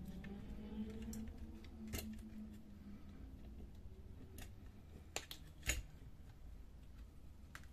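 Scattered sharp clicks and light knocks of plastic and metal fuser parts being handled as the pressure roller is worked out of a Lexmark MX410 fuser. There are about five clicks, with the two loudest a little past the middle.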